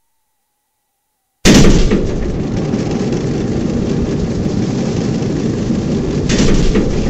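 Silence, then about a second and a half in, a loud, steady rumbling noise of a train running close by starts abruptly, as at an edit cut.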